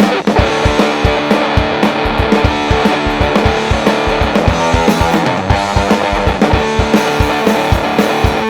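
Electric guitar, a 1980 Gibson SG Custom through a Marshall head and a Stone Deaf PDF2 fuzz pedal, playing a loud, thick fuzzed rock riff over a drum beat with steady low thumps several times a second.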